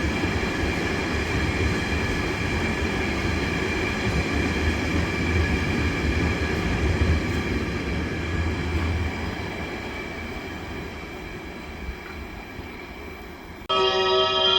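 Freight train rolling through the station: a steady rumble of wagon wheels on the rails with a few steady high-pitched wheel tones, fading away over the last few seconds. Near the end it cuts abruptly to a musical station chime.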